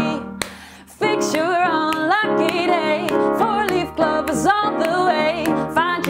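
Acoustic song performance: the music breaks off almost to silence for about a second, then a woman's singing voice comes back in with a plucked string instrument accompanying her.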